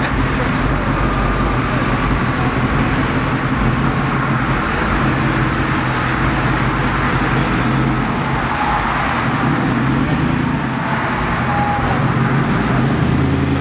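Lifted pickup truck's engine running steadily at low speed as the truck creeps across grass, with road traffic underneath.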